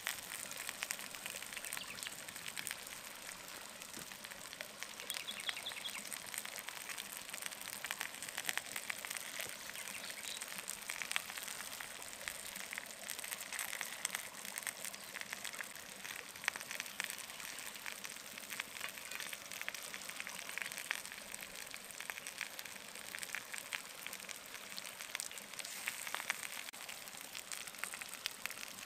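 Lamb ribs and potatoes sizzling on a hot stone slab over a wood fire: a steady hiss full of fine crackling ticks.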